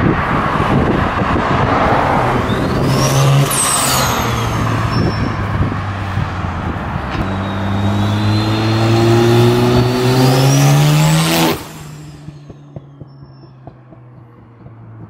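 Turbocharged Mazda RX-7 rotary engine driven hard past the listener, sounding mean. After a few seconds of dense exhaust roar, the engine note climbs steadily as the car accelerates, with a high whine rising alongside it. About three-quarters of the way through it drops off suddenly to a faint, low hum.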